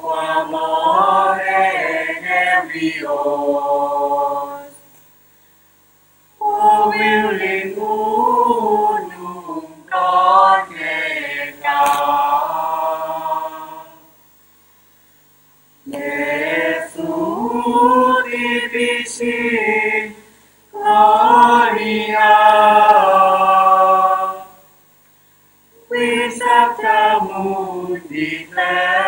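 A choir singing in long, slow phrases, with three short breaks of silence between them.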